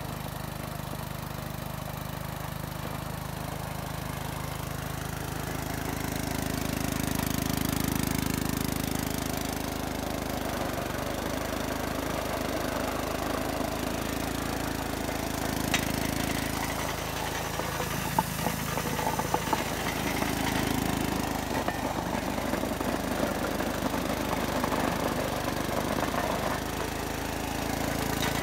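Briggs & Stratton 5.5 hp Intek small engine running steadily, driving the hydraulic pump of a chainsaw bar that cuts through a wooden board. A few sharp ticks come partway through.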